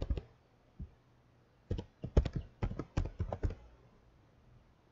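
Computer keyboard keystrokes: a couple of single key presses, then a quick run of typing from about two seconds in that stops after about three and a half seconds.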